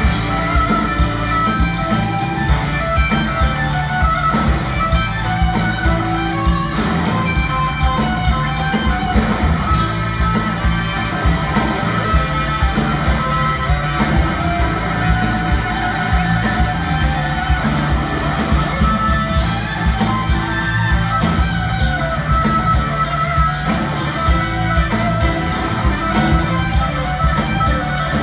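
Live rock band playing an instrumental passage: a Stratocaster-style electric guitar leads over drums and bass guitar, with no singing.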